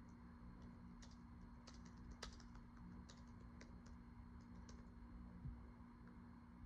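Near silence with faint, irregular light clicks, typical of typing on a keyboard, over a low steady hum.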